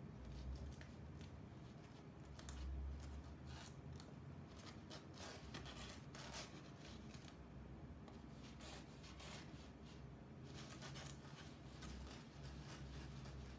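Faint, irregular scratching and clicking over a low steady hum: a shadow puppet being worked on its rods against a backlit paper screen.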